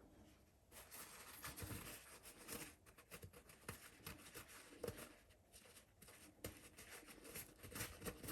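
Faint scratching and small clicks of corroded battery contacts in a solar light being scrubbed clean.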